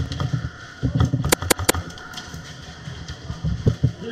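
Airsoft gunfire: sharp single cracks, three close together about a second and a half in, with softer low thumps between them.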